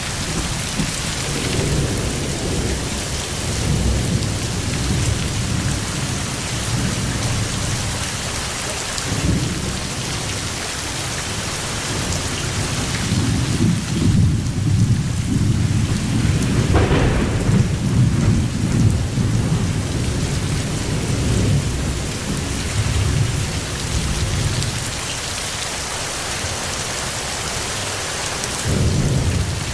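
Steady heavy rain hissing, with thunder rolling low underneath. The rumbling swells and fades and is loudest around the middle.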